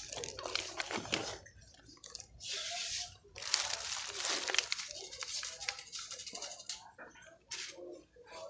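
Rustling and crinkling of handled plastic blister packaging close to the microphone, in two bursts of about a second each a few seconds in, with faint background music and voices.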